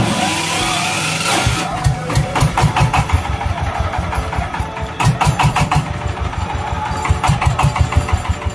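Single-cylinder diesel engine of a power tiller running, with a rapid, even thudding of its firing strokes. A loud hiss over the first second or so accompanies it.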